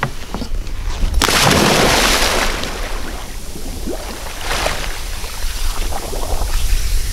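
Scuba diver in full gear jumping from a boat into the sea: one big splash about a second in, then water sloshing and churning around him as he surfaces.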